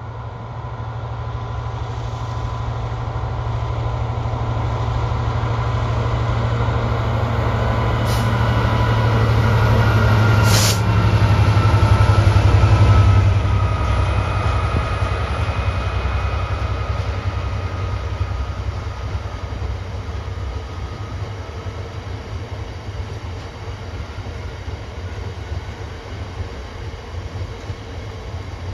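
GBRf Class 66 diesel-electric locomotive, with its EMD two-stroke V12 engine, drawing a train of loaded aggregate wagons past. The engine note grows louder and passes a little before halfway, with two short sharp clicks shortly before. The wagons' wheels then run on over the rails, slowly fading.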